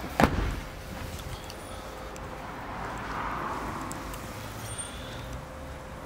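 The tailgate of an Audi A1 hatchback shut with a single heavy thump about a quarter second in, followed by steady low room noise.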